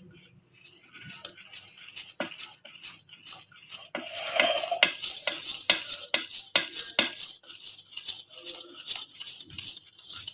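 A spoon stirring a thin semolina-and-sugar batter in a bowl, with repeated clicks and scrapes against the bowl's sides and a louder stretch of stirring about four seconds in.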